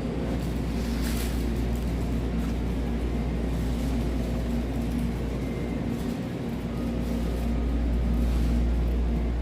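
Steady low machine hum with fixed tones above it, the background drone of a supermarket's refrigeration and ventilation.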